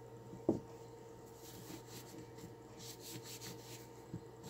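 A soft thump about half a second in as a pistol part is set down on carpet, then faint cloth rubbing and light knocks as the Glock 22 pistol's slide is picked up and wiped with a cloth.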